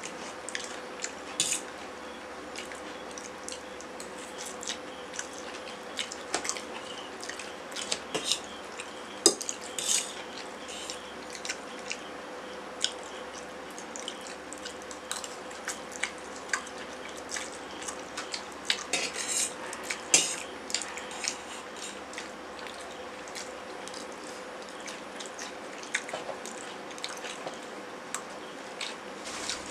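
Metal forks clinking and scraping on stainless steel plates as two people eat noodles, in irregular sharp clicks over a faint steady hum.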